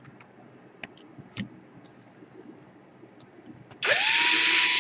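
Small clicks of screws and tools being handled, then near the end an electric screwdriver whirs up to speed and runs steadily, backing out one of the laptop's battery screws.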